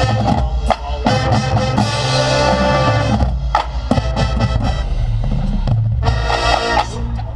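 Marching band playing: brass chords over the drum line, with the horns dropping out for a few seconds in the middle while the drums carry on, then coming back in near the end.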